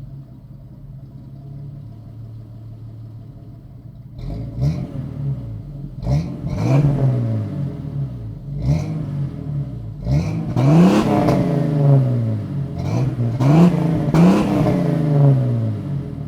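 1989 Jeep Cherokee XJ's 4.0L inline-six idling through a Flowmaster 40 Series Delta Flow muffler, then revved in a series of throttle blips, each rising quickly and dropping back to idle. The last few revs are the longest and loudest.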